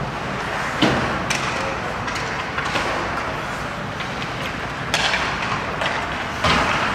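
Ice hockey play in a rink: sharp knocks of sticks and puck, the loudest about a second in and more around five and six and a half seconds in, over a steady arena noise.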